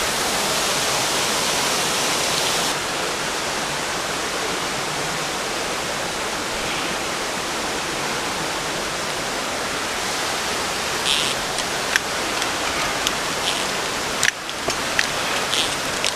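Steady rush of falling water from a waterfall, with a few light clicks and knocks in the last few seconds.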